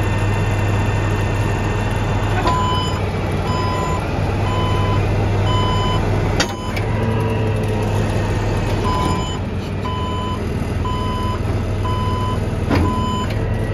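Versalift VO270 forestry truck's engine running steadily with the hydraulic PTO engaged while the outriggers are raised. A warning alarm beeps regularly in two runs, the first starting about two and a half seconds in and the second about nine seconds in. There is a sharp click about halfway through and another near the end.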